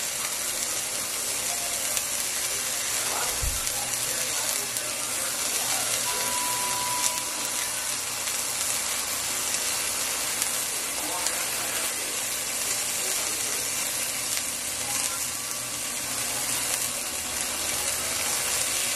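Pot of cauliflower cheese soup simmering on a gas burner, a steady sizzling hiss.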